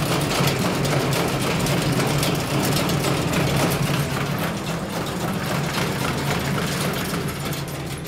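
Motorized elderberry destemmer running, shaking berries off their stems: a steady hum under a dense, continuous rattle.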